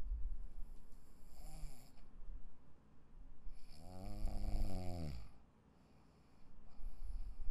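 A sleeping person snoring: a short faint snore about a second and a half in, then one loud, pitched snore lasting over a second in the middle, followed by a short quiet pause before low breathing noise returns near the end.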